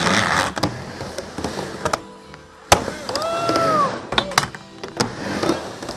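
Skateboard wheels rolling on a wooden ramp, broken by several sharp clacks of the board and trucks against the coping. About three seconds in, a brief squeal rises and falls.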